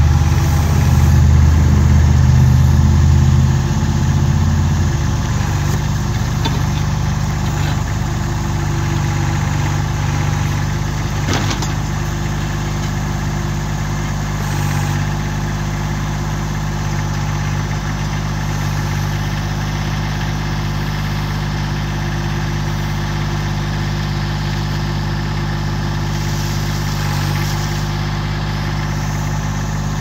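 Massey Ferguson GC1710 compact tractor's three-cylinder diesel engine running steadily as the backhoe digs. The engine is louder and deeper for the first few seconds, then settles. There is a single sharp knock about eleven seconds in.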